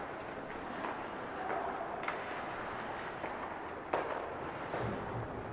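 Ice hockey rink sound during play: a steady arena din with scattered clicks of sticks and puck on the ice, and one sharp knock about four seconds in.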